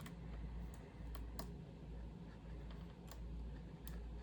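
Faint, irregular small clicks of a lock pick touching and lifting the pins inside a pin-tumbler challenge lock held under light tension, over a low steady hum.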